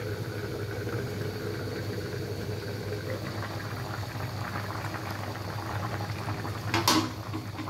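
Chicken curry boiling in an aluminium pan, a steady bubbling and crackling as the gravy reduces and thickens. A single short sharp clatter comes near the end.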